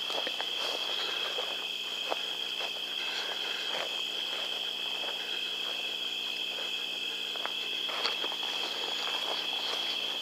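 Steady chorus of insects, an even high-pitched trill that never breaks, with faint scattered rustles and clicks under it.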